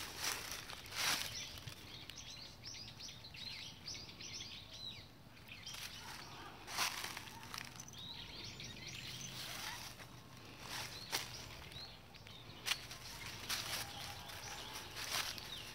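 Dry fallen leaves crunching and rustling in a few sharp bursts as feet and a cat's paws move through them, with birds chirping in quick twittering runs in the background.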